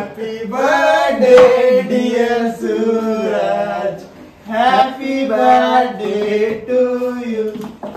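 A man's voice singing a melody in two long phrases of held notes, with a short break about four seconds in.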